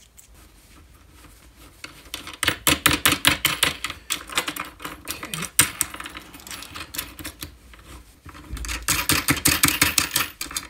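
Rapid metallic clicking and rattling as threaded cylindrical proximity sensors and their locknuts are worked into holes in an aluminium bracket by hand, in two spells.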